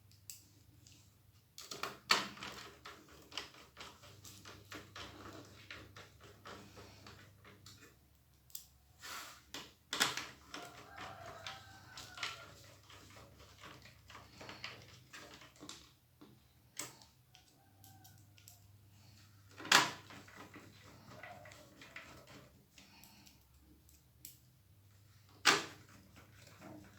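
Scattered clicks, taps and handling knocks of a laptop's plastic case and parts being fitted back together, with a few sharper knocks about two, ten, twenty and twenty-five seconds in.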